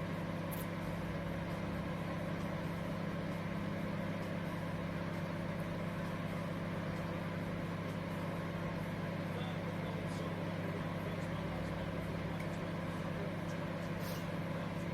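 COMFEE' 19L 700W mini microwave oven running: a steady low hum with a few faint ticks.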